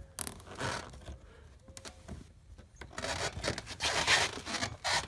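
Nylon zip ties being pulled through their ratchets to stitch a cracked plastic bumper cover back together, each pull a short zipping rasp. A couple of single rasps early give way, about three seconds in, to a louder run of quick rasps and clicks.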